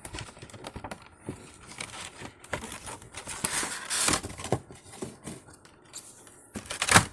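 Packaging being handled: a cardboard toy box opened and a clear plastic blister tray of die-cast toy cars slid out, with crinkling plastic, cardboard scraping and irregular small clicks. A short, sharper and louder crackle comes near the end.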